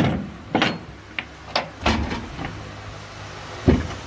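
About six sharp metal clanks and knocks from work on a combine harvester's threshing drum, the loudest at the very start and another near the end, over a steady low hum.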